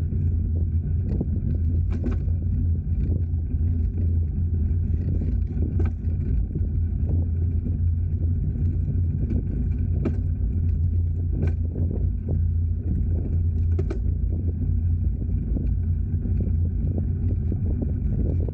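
A car driving: a steady low rumble of engine and road noise, with scattered short knocks and rattles.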